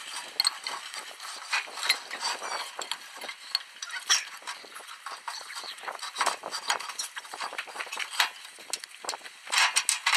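Cast-iron parts of a heavy-duty bench vise being handled and fitted together: irregular metal clinks, knocks and scrapes as the movable jaw is worked on the body, with a busier clatter near the end.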